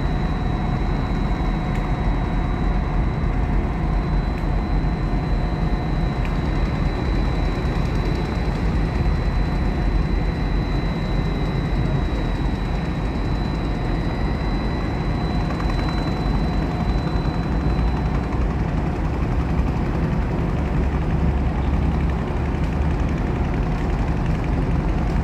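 Boat engines running steadily with a low rumble, and a faint high whine that fades out about three-quarters of the way through.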